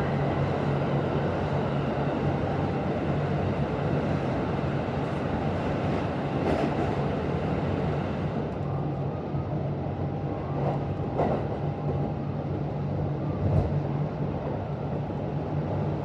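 Running noise heard inside a Kintetsu 1026 series electric train between stations: a steady low hum over wheel and rail rumble, with a few short knocks from the track.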